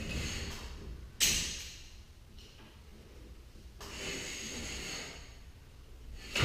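Garage door torsion springs being handled on their steel shaft: a sudden knock about a second in, a longer scraping sound around four to five seconds, and another knock at the end.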